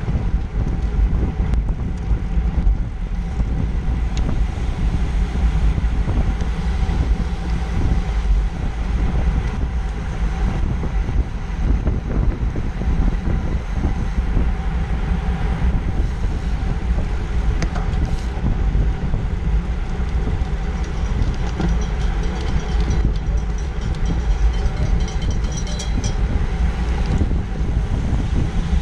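Steady wind rumble on the microphone of a camera mounted on a road bike riding in a racing pack at about 20 mph, mixed with tyre and road noise.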